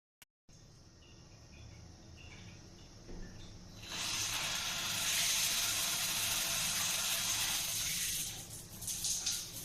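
A click and a faint hum, then about four seconds in water starts spraying from the hand shower of an Elba Attivo instant water heater and keeps running as a steady hiss.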